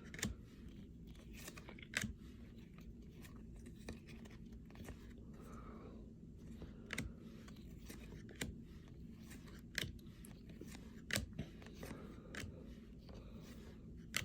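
Baseball trading cards being flipped through one at a time, each card giving a short, sharp snap or click about every second and a half, over a low steady room hum.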